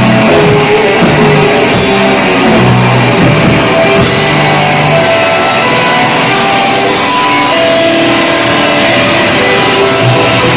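Rock band playing loud live, guitar-driven, with bass and drums.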